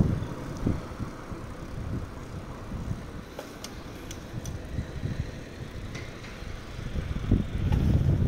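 Wind buffeting the microphone of a camera on a moving bicycle: an uneven low rumble that eases in the middle and grows stronger again near the end, with a few faint sharp clicks.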